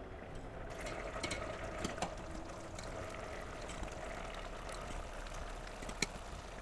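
Water in a pot of cooked kidney beans bubbling and sloshing while a wire spider strainer scoops beans out of it, with a few sharp metal clicks of the strainer against the pots, the loudest about six seconds in.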